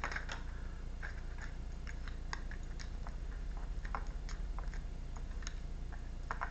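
Tarot cards being handled: light, irregular clicks and taps of cards against each other and the table, over a steady low hum.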